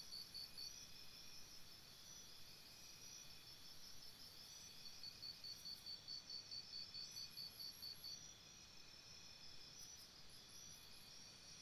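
Faint chirping from an insect, a high pulsed call at about four chirps a second, coming in runs of a few seconds over a quiet background hiss.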